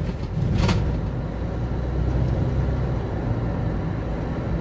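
Car cabin noise while driving: a steady low engine and road rumble heard from inside the car. There is a short burst of noise just under a second in.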